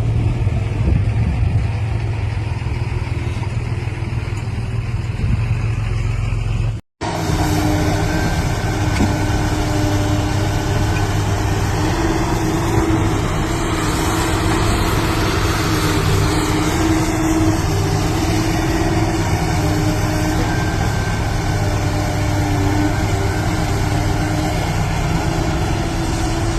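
Heavy construction machine's diesel engine running steadily at a low, even pitch. The sound cuts out for a split second about seven seconds in, then carries on unchanged.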